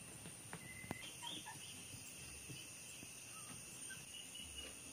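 Quiet background: a faint steady high-pitched hiss with a few soft clicks and small ticks.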